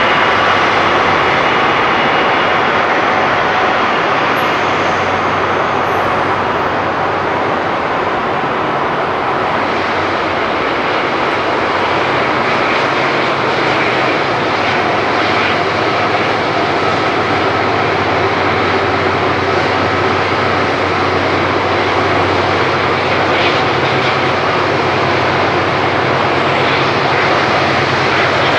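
Airbus A330-300 jet engines running at taxi power, a steady jet rumble. A faint high whine fades out in the first few seconds.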